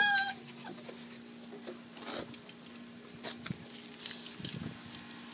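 A Rhodesian Ridgeback puppy gives one short, high whine right at the start, followed by faint scuffling and pattering of paws over a steady low hum.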